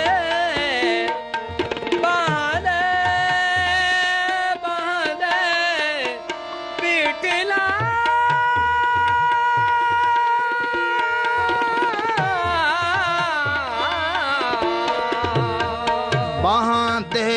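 Instrumental interlude in a Gurbani kirtan: a melodic line with gliding, wavering ornaments and one long held note around the middle, over tabla.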